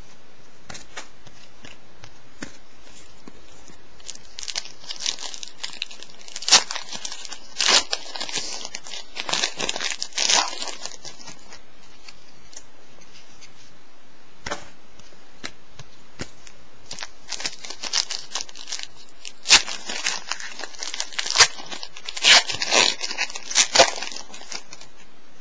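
Clear plastic wrapper of a football trading-card pack being torn open and crinkled by hand. The crackling and ripping comes in two spells, one a few seconds in and another past the middle.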